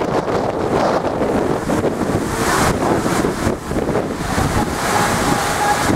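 Strong wind buffeting the microphone over storm waves crashing against a sea wall, the wash of surf swelling twice.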